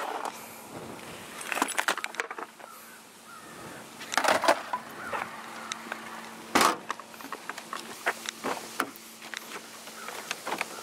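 Clatter and knocks of skateboards being loaded into a car, with one heavy thud about six and a half seconds in, over a faint steady hum.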